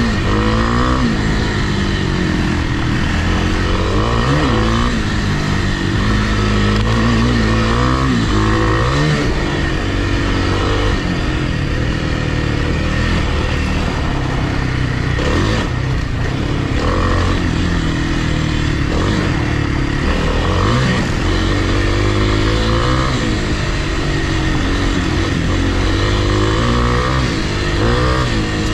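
Single-cylinder four-stroke dirt bike engine being ridden on a trail, its revs rising and falling every second or two as the throttle is worked. A sharp knock is heard about halfway through.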